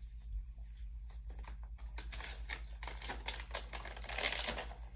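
A plastic treat pouch crinkling and rustling in the hands, busiest and loudest in the second half, after a couple of seconds of small scattered clicks.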